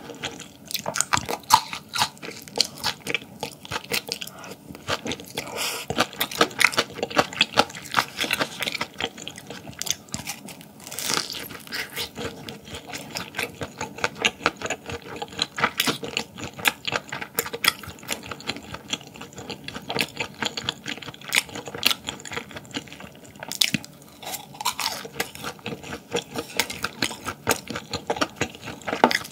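Close-miked chewing and eating mouth sounds: a dense, continuous stream of small clicks and crunches, with a few longer noisy swells.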